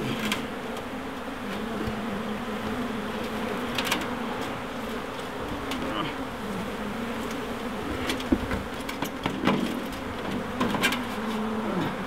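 A dense mass of honey bees buzzing in a steady, wavering drone as their cluster is scraped off a metal chimney flue into a tub. A few short sharp knocks and scrapes cut through it, loudest a little past the middle.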